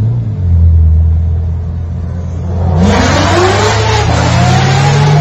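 A low steady engine drone inside a following car. About three seconds in, a Chevrolet Corvette's V8 opens up at full throttle: a loud rush with the engine note rising in two sweeps.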